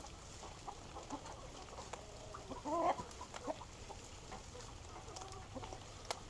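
Backyard chickens clucking softly, in short scattered calls, with one louder call about two and a half seconds in.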